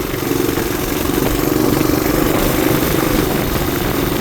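Small engine running steadily while riding, holding an even pitch and getting slightly louder about a second in.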